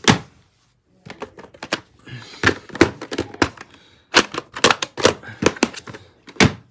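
Plastic clamshell VHS case being handled and opened: a run of sharp plastic clicks and snaps in uneven clusters, with a short pause about half a second in.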